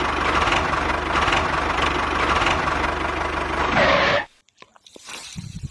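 A motor-driven machine runs steadily with a low, rhythmic pulsing, then cuts off suddenly about four seconds in, leaving near silence.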